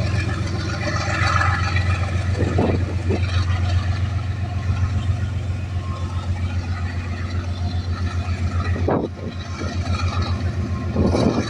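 An engine running steadily with a low, fast, even throb, with a few brief knocks about two and a half, nine and eleven seconds in.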